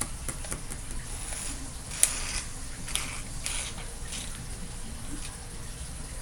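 Spaghetti being eaten close to the microphone: scattered mouth noises, with one sharp click about two seconds in.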